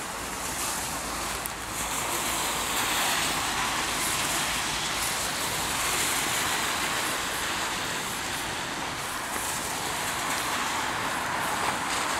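Road traffic on rain-wet asphalt: cars passing through an intersection, their tyres making a steady hiss that builds over the first couple of seconds and then holds.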